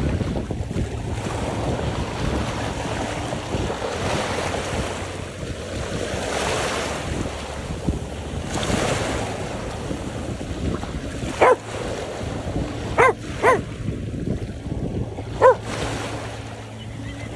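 Small waves washing over shoreline rocks and shingle, with wind buffeting the microphone. In the second half a dog gives four short barks: one, a quick pair, then one more.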